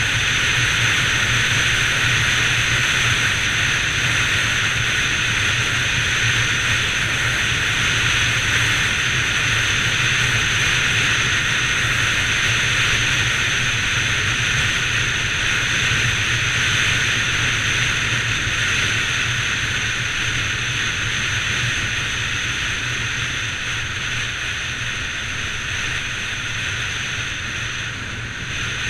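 Bajaj Pulsar 200 NS single-cylinder engine running steadily while riding at speed, under a steady rush of wind and road noise. It eases off slightly near the end.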